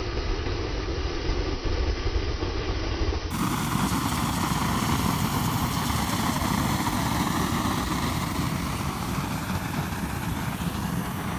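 Homemade kerosene rocket engine firing: a steady, continuous rush of atomized fuel burning as a long flame jet out of the nozzle. The noise turns brighter a few seconds in, where the recording cuts.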